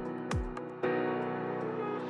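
Background music: sustained keyboard chords over a steady beat, with two beats about half a second apart early on and then the chords held alone.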